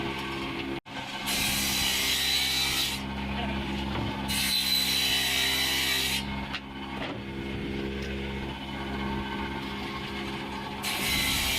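Electric jigsaw running with a steady motor hum, its blade cutting through plywood in three stretches of a couple of seconds each with a rasping hiss. The sound drops out for an instant about a second in.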